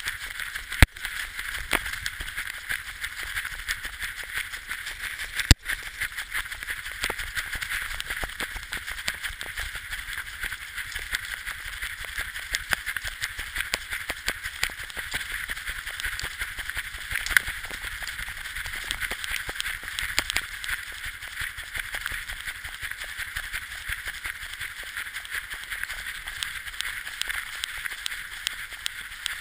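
Sled dog running in harness, heard from a camera on its harness: a steady rapid patter and rattle of paws and gear, with a few sharp knocks, the loudest about a second in.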